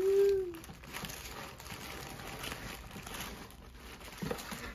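Tissue paper rustling and crinkling as hands dig through a gift box and pull an item out. A brief hum-like tone, the loudest moment, comes at the very start.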